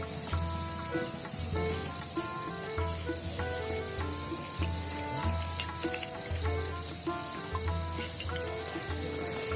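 A continuous high-pitched insect drone, typical of crickets or cicadas, over background music with pulsing bass and short melodic notes.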